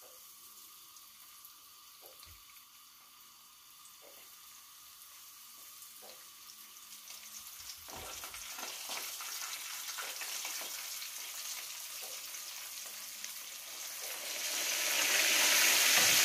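Floured horse mackerel frying in hot olive oil in a frying pan. The sizzle is faint at first, with a few light knocks, builds from about halfway as more fish go in, and grows much louder over the last couple of seconds.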